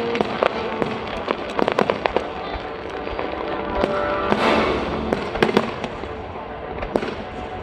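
Aerial fireworks bursting, a steady string of sharp bangs going off one after another throughout.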